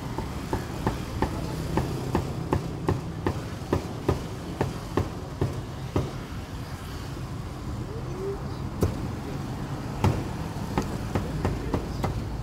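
Meat cleaver chopping roast pork on a round wooden chopping block: sharp knocks about three a second, a pause of a few seconds past the middle with one or two single strikes, then steady chopping again near the end. A low steady rumble runs underneath.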